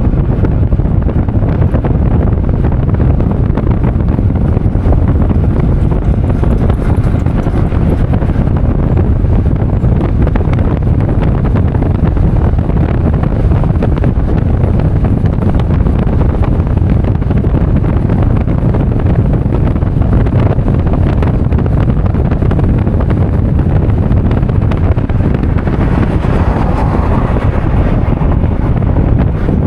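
Heavy wind buffeting on the microphone: a loud, steady low rumble with no distinct events.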